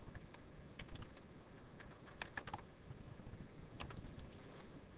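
Faint computer keyboard keystrokes: a few short clicks in small groups as a word is typed.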